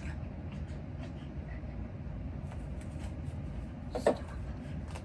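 Slime being mixed and handled, with faint soft clicks and rustles. A short pitched sound about four seconds in is the loudest thing heard.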